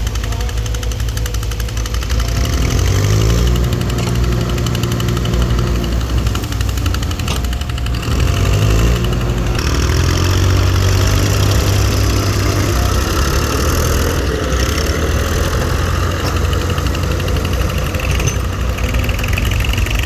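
Diesel engine running loud and knocking, revving up twice, about three and nine seconds in, and holding the higher speed each time.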